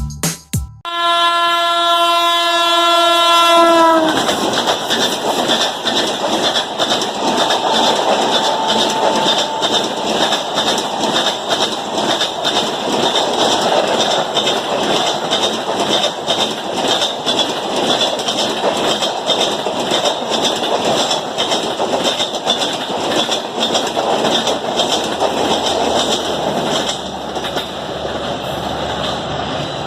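Indian Railways express train sounding one long horn blast about three seconds long, then rushing past at speed with a dense clatter of wheels over rail joints. The noise eases a little near the end.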